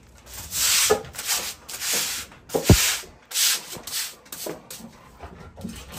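Stiff broom or scrub brush scrubbing a wet, soapy concrete floor in repeated short strokes, with one sharp knock near the middle.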